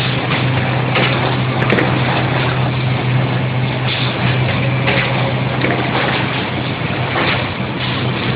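Automatic case-making machine running: a steady low hum and mechanical whir, with short clacks every second or few as covers are pressed and delivered.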